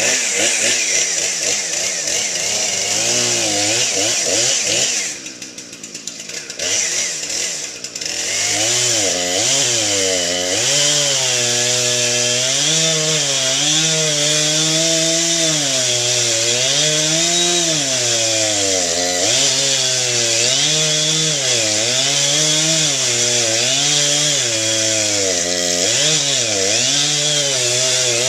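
Husqvarna two-stroke chainsaw running loud, dropping to a lower, quieter speed for a few seconds about five seconds in, then held at high revs with its pitch dipping and recovering every second or two as it cuts into a cherry tree.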